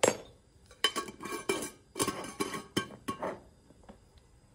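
A metal spoon clinking against a brass coffee kettle in several quick runs of taps and scrapes, each with a brief metallic ring, as ground coffee goes into the pot.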